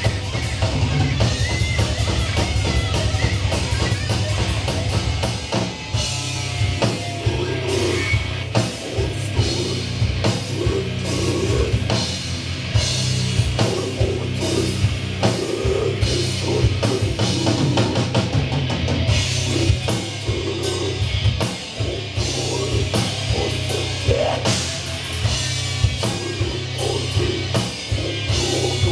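Heavy metal band playing live: dense, fast drumming with bass drum under distorted electric guitar and bass.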